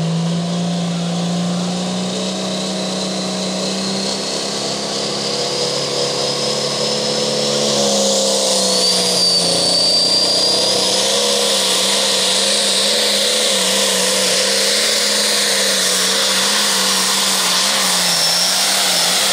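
Turbocharged diesel pulling tractor running hard under load, its engine note climbing slightly at first, with a high whine that rises in pitch and grows louder about halfway through.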